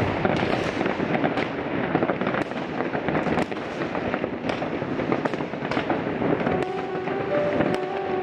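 Fireworks going off: dense crackling with many sharp bangs in quick succession.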